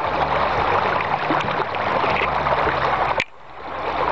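Floodwater rushing and splashing as the camera moves through it, with a steady low hum underneath. The sound cuts off suddenly about three seconds in and then swells back up.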